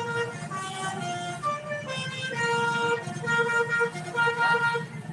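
Bus 'telolet' horn, a Basuri multi-tone horn, playing a tune of held and short repeated notes that step up and down in pitch, over a steady low engine rumble.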